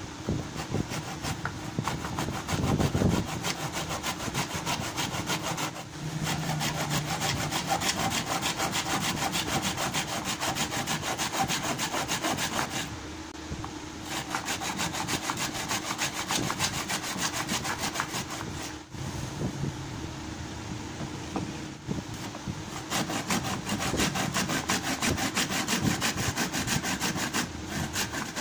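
A hand-held saw blade cutting into the willow at the shoulder of a cricket bat in quick back-and-forth strokes, cutting out the broken handle stub. The strokes stop briefly a few times.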